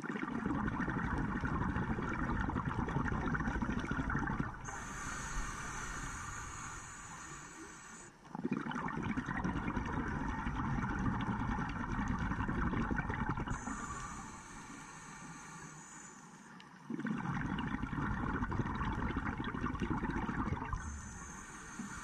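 A scuba diver breathing through a regulator underwater, heard through a camera housing: three long rushes of exhaled bubbles, about eight seconds apart, each with a quieter regulator hiss of inhaling between them.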